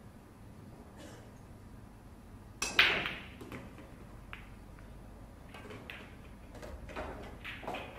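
Pool balls being shot on a billiard table: one sharp knock about three seconds in, then scattered lighter clicks and knocks as the balls roll, collide and one drops into a pocket.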